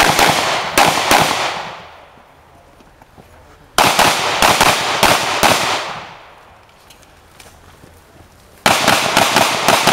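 Pistol shots in three quick strings of several rapid cracks each, about four seconds apart, each shot echoing off the range's earth berm.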